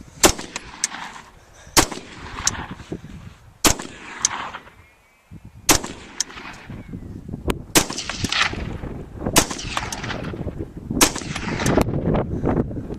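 Rifle shots, about one every one and a half to two seconds, each followed by a rolling echo, with fainter pops in between.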